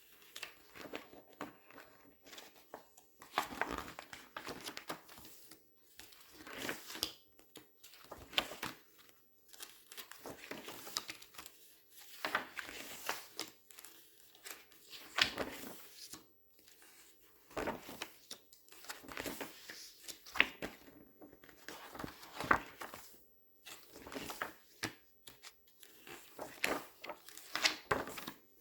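Glossy paper pages being turned and squeezed by hand: crinkling rustles that come again every second or two.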